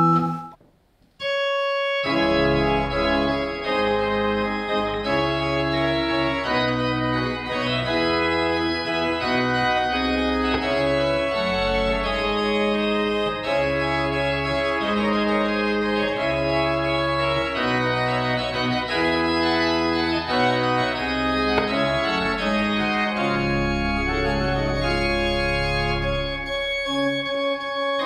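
Arp Schnitger-style baroque pipe organ playing many-voiced music on manual and pedals: held notes over a moving bass line. It starts about two seconds in, after a brief silence.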